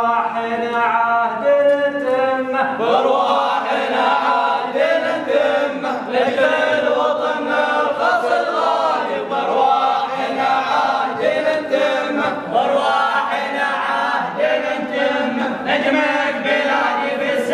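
A group of men chanting an unaccompanied Omani folk song. One voice carries the first couple of seconds before the group joins in.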